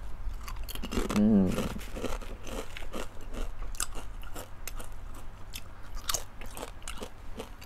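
Crunchy spicy nacho-cheese chips being bitten and chewed close to the microphone: a steady run of sharp, crisp crunches, with a brief hummed voice sound about a second in.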